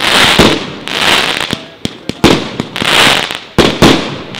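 49-shot 1.2-inch fireworks cake (Triplex TXB058 Blaze) firing in sequence: sharp bang reports about every half second to a second, some in quick pairs, each trailed by a hissing crackle of the bursting stars that swells and fades.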